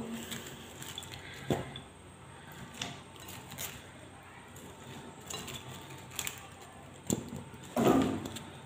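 Cauliflower florets being set down one by one into a nonstick frying pan holding a little water, making light scattered knocks against the pan, the loudest near the end.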